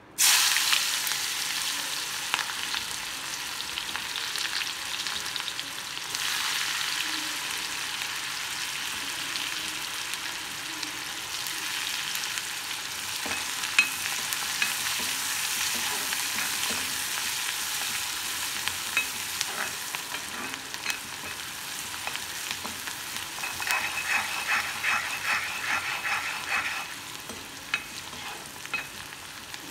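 Chopped onions dropped into hot oil in an iron kadai hiss loudly the instant they hit, then sizzle steadily as they fry while a wooden spoon stirs them. Near the end the spoon strikes and scrapes the pan in a quick run of strokes.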